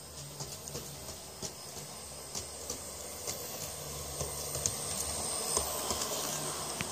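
Piko G-scale model steam locomotive running on brass sectional track: a steady motor and gear hum with irregular clicks of the wheels over the rail joints, growing louder as it passes close by, then cutting off suddenly at the end.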